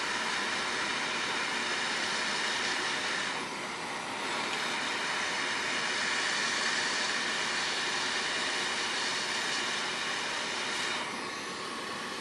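JBC hot air rework station blowing hot air through its nozzle onto a phone charging connector to melt the solder paste: a steady hiss of air that dips briefly about four seconds in and drops off about eleven seconds in.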